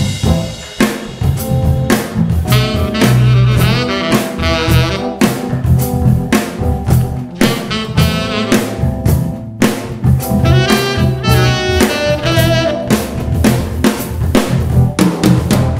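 Live funk band playing, the drum kit out front with busy snare and bass drum strokes over electric bass, keyboard and saxophone.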